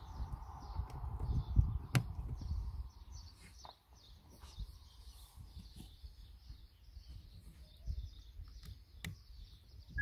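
Handling noise and a few sharp clicks as a USB cable is plugged in and handled, the loudest click about two seconds in, with faint birds chirping in the background.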